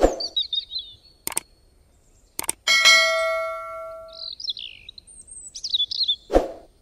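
Short high bird chirps, broken by a few sharp clicks and then a notification-bell ding that rings out and fades over about a second and a half, as in a subscribe-button animation. A dull thump comes at the start and again near the end.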